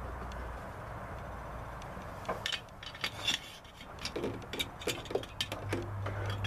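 Loose triple gears in a 1924 Model T Ford's planetary transmission being rocked by hand, giving a run of irregular metallic clinks and knocks from about two seconds in. The gears have so much play that the owner reckons there is no bushing left in them.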